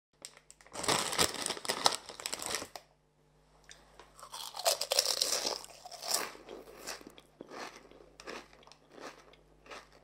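Potato chips being bitten and chewed close to the microphone. A loud burst of crunching is followed by a short pause, then a second crunching bite about four seconds in, then slower, spaced chewing crunches.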